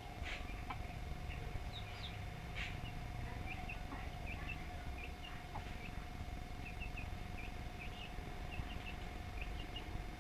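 Small birds chirping, many short high chirps scattered throughout, over a steady background hum and low rumble.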